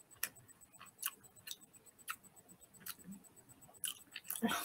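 Close-miked mouth sounds of chewing sticky palitaw, a glutinous rice cake, with the mouth closed: irregular wet clicks about one every half second to second, with a louder, fuller sound near the end.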